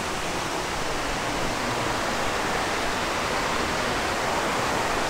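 Steady rush of flowing water, an even unbroken wash of noise.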